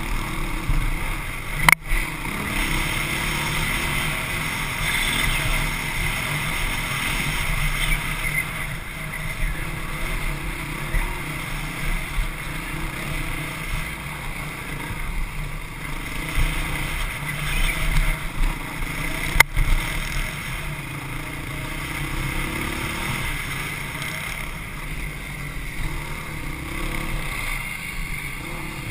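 Honda CRF450X dirt bike's single-cylinder four-stroke engine running hard on a rough trail, its pitch rising and falling as the throttle opens and closes. Two sharp knocks cut through, about two seconds in and again after about nineteen seconds.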